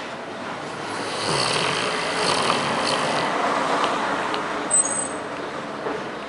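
A road vehicle passing by, its noise swelling about a second in and fading near the end, with a brief high squeal about three-quarters of the way through.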